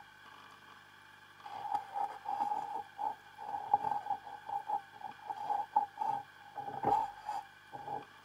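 Irregular knocks and rattles with a ringing tone, carried through an underwater camera rig as a conger eel and dogfish nose and tug at the bait canister on its bait pole. The knocks start about a second and a half in, come in quick runs, and the heaviest comes near the end, over a steady faint hum.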